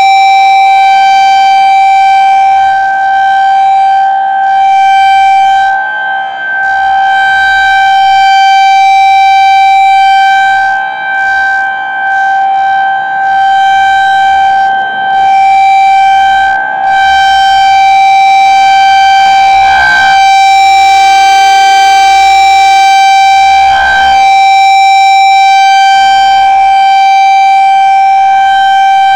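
Federal Signal 2001-SRN electromechanical outdoor warning siren sounding a steady, very high-pitched, loud tone during its monthly test. The pitch holds level while the loudness briefly fades every few seconds.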